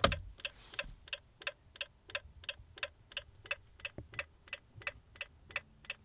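Jeep JL Wrangler turn-signal ticking from the dash, even clicks about three a second with the right turn signal on. A brief rustle of the hand on the stalk and wheel in the first second.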